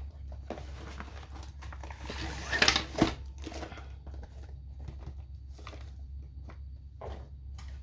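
Packaging of a diamond-painting kit being handled: plastic and paper rustling and crinkling, with a louder burst of rustling about two to three seconds in and scattered small clicks and taps.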